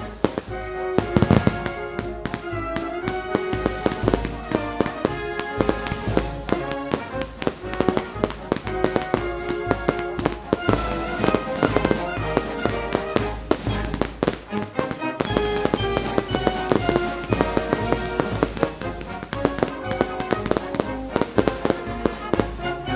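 Fireworks going off: many rapid bangs and crackles over music playing throughout.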